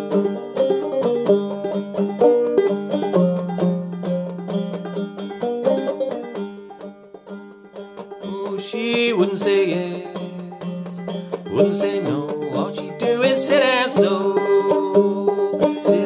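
Five-string banjo played clawhammer style in sawmill tuning: a steady, rhythmic run of picked melody notes and brushed strums over a ringing drone, easing off briefly about seven seconds in.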